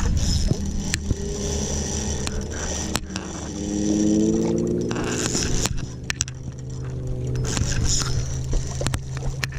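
A steady low motor hum, with scraping and sharp clicks of handling over it.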